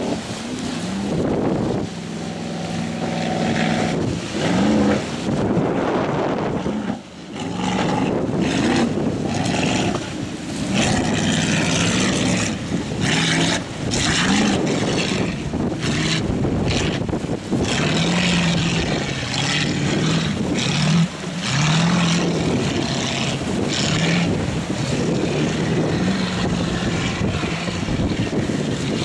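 Racing powerboat engines running flat out, their pitch repeatedly rising and falling, with wind buffeting the microphone.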